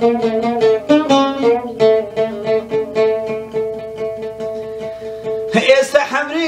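Oud played solo with fast repeated plucks on a few held notes. Near the end a man's voice comes in singing over it.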